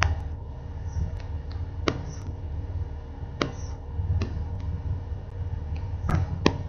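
Steady low hum and hiss with about half a dozen irregular sharp clicks, picked up through an RC plane's onboard camera while the plane is carried by hand.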